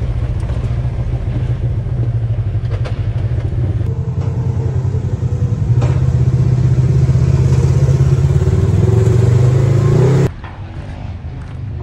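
Polaris RZR 1000 side-by-side engine running steadily while driving, then working harder and getting louder as the machine climbs a ramp onto a trailer. The sound drops away abruptly about ten seconds in.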